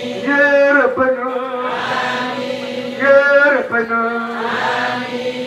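A voice chanting a prayer in long, held melodic phrases, with short breaks between the phrases.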